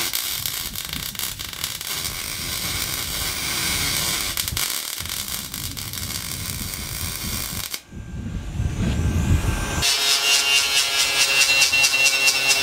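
Aluminium being MIG welded: a steady crackling hiss from the arc as the bead is run. It cuts off about eight seconds in, and from about ten seconds an angle grinder with a sanding disc is running on an aluminium pontoon tube, a steady high whine.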